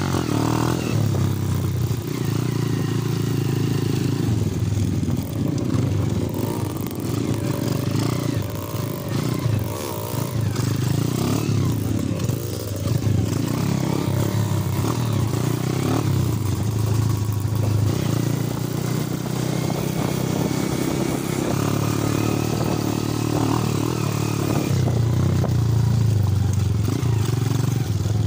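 Underbone motorcycle engine running while riding a dirt trail, its note rising and falling with the throttle.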